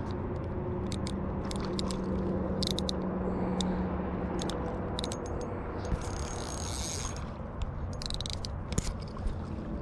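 Small Okuma ultralight spinning reel being cranked close to the microphone to bring in a hooked small bass, with scattered sharp clicks from the reel and handling, and a brief hiss about six seconds in.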